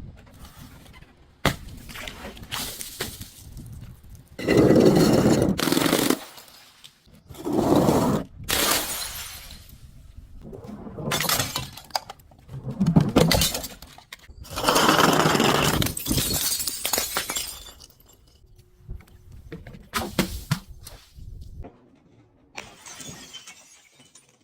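Glass bottles being crushed and shattering, four loud crunching breaks each lasting a second or two, with sharper cracks and quieter crackling of glass between them.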